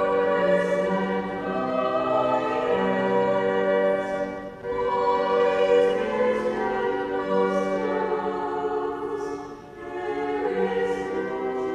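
Choir singing a slow sacred piece in sustained chords, with two brief breaks between phrases.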